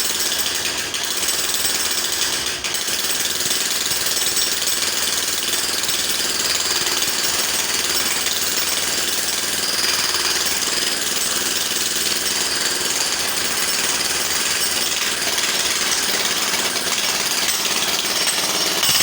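Electric jackhammer running continuously, a fast, unbroken hammering rattle.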